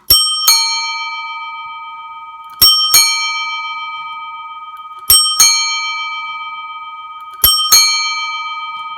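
Yepp metal bicycle bell rung four times with its ding-dong action: each ring is two strikes under half a second apart, a higher note then a lower one. Both notes ring on loudly and are still sounding when the next ring comes.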